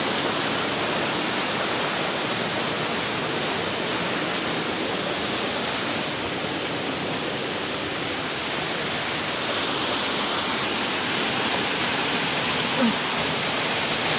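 Waterfall: the steady rush of water falling over rocks, a continuous hiss.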